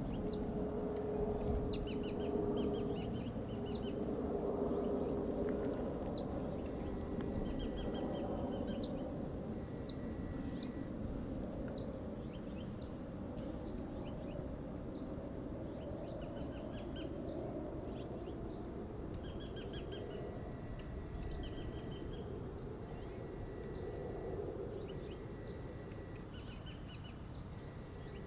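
Small birds chirping again and again with short high notes and quick trills, over a steady low background rumble.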